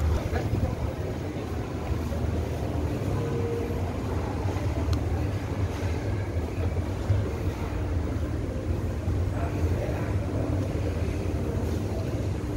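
Steady low rumble of a large store's indoor ambience, with faint scattered tones and clinks over it.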